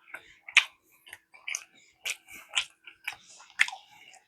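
Close-miked chewing: a series of wet mouth smacks and clicks as food is eaten.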